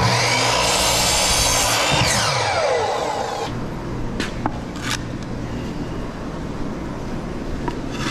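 Electric miter saw running and cutting through a wooden board, then its motor winding down with a falling whine about two to three seconds in. Two sharp knocks follow as the cut wood blocks are set down on the concrete floor.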